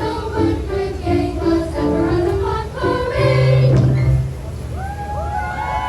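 Youth choir singing over a low accompaniment note. The phrase ends about four seconds in, and then several high voices call out, sliding up and down in pitch.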